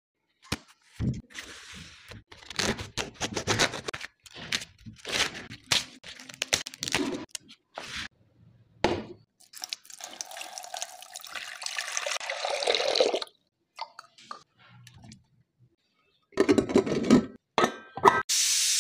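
A run of knocks and clatters from kitchen handling. Then water is poured into a stainless-steel pressure cooker for about three seconds. Lid and weight clunks follow, and near the end the pressure cooker's vent starts hissing steadily with escaping steam.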